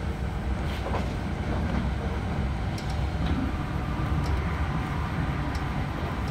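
Z20500 double-deck electric commuter train running at speed, heard from inside the carriage: a steady low rumble of wheels on the rails with a few sharp clicks.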